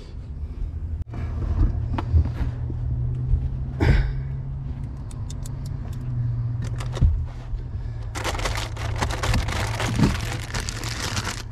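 Metal tools and parts clinking as they are handled, with scattered sharp clicks and then a stretch of continuous rattling and jangling from about eight seconds in, over a steady low hum.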